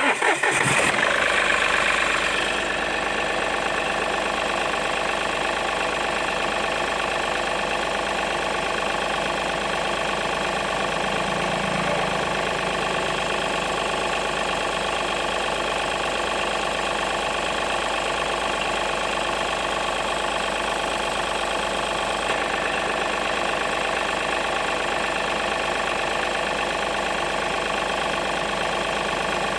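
Remote-control toy truck running with a steady, engine-like mechanical drone. It starts abruptly and is a little louder for the first two seconds, then holds level.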